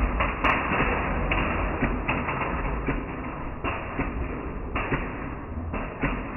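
Nerf Rival minigun firing foam balls into a house of magnetic building tiles: a continuous rush of firing noise broken by many irregular taps and thuds as balls and tiles hit and fall.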